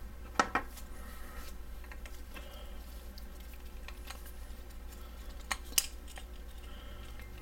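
Handling of a flashlight and its spring-loaded rail mount: two quick sharp clicks about half a second in and two more just before six seconds, with light rubbing in between.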